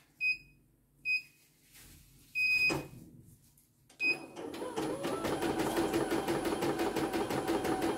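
Control-panel key beeps from a CNY E900 computerised embroidery machine, four short beeps with a longer one in the middle. About four seconds in, the machine starts stitching again with a fast, even needle rhythm as embroidery resumes.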